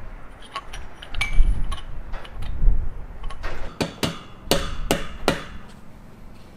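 Sharp metal taps and clinks of tools and parts while pushrod tubes are fitted to a Franklin 165 aircraft engine: light clicks and dull bumps at first, then a quick run of about five sharp knocks about halfway through.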